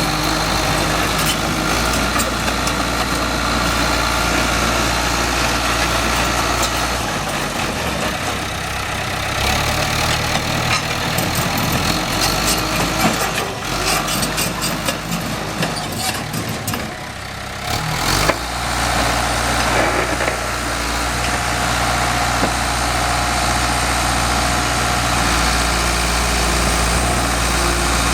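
Diesel engine of a John Deere 450G crawler dozer running steadily. In the middle the sound turns uneven, with some clatter, then settles back to a steady run.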